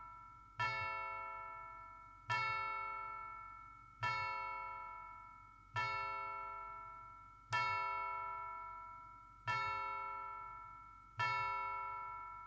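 A single bell tolling: struck seven times, about every 1.8 seconds, each stroke ringing out and fading until the next.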